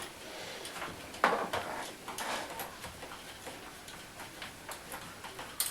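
Small screwdriver driving the last bezel screw into a laptop's plastic screen bezel: faint scattered ticks and clicks, with a sharper click about a second in and another near the end.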